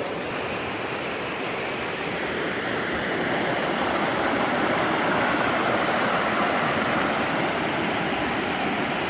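Steady rush of a whitewater mountain river running over rocks, growing a little louder a few seconds in.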